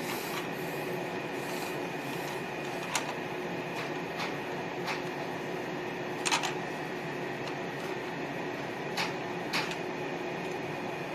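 Campfire burning with a steady hiss, broken by about six sharp pops from the burning wood; the loudest is a double pop just past six seconds in.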